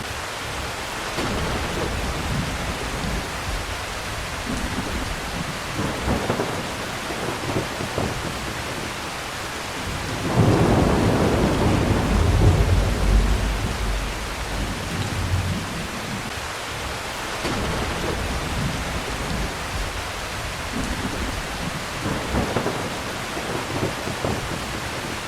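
Steady heavy rain with thunder. A long, loud rumble of thunder comes about ten seconds in and lasts several seconds, with softer rumbles before and after it.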